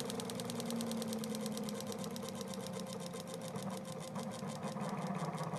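Counter-rotating Kromrey converter coasting down after being switched off: a rhythmic ticking from its spinning armatures that slows steadily as the rotors lose speed, over a steady low hum.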